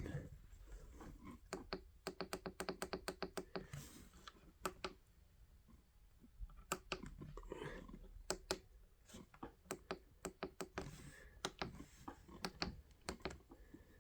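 Quick runs of small, sharp clicks, several a second, with pauses between the runs.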